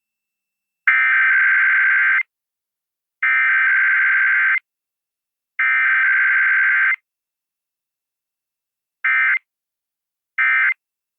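Emergency Alert System SAME data tones: three evenly spaced burst headers of warbling data tones, each over a second long, then after a pause two short end-of-message bursts. It is the coded signal of an EAS test being relayed.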